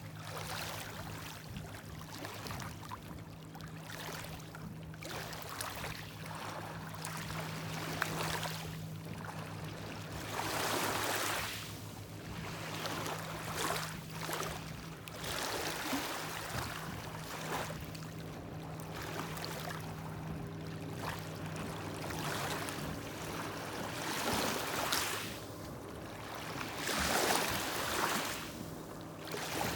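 Small lake waves washing in and out against the shore, swelling every few seconds, over the steady drone of a boat engine.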